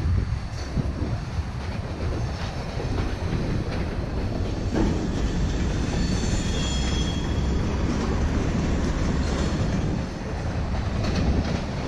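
Freight train of covered hopper cars rolling past on the tracks below, a steady rumble of wagons and wheels on rail, with a faint high wheel squeal around the middle.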